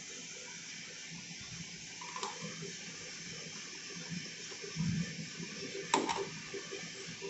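Coffee roasting machine running with a steady hiss. There is a sharp click about two seconds in, a low thud near five seconds, and a louder double click about six seconds in.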